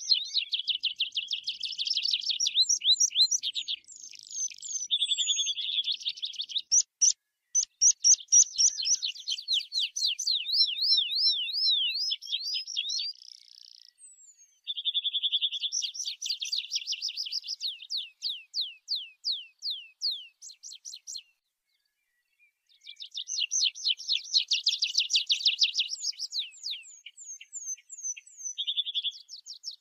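Tree pipit singing: repeated song phrases of fast trills and runs of clear sliding notes, with a short gap about two-thirds of the way through.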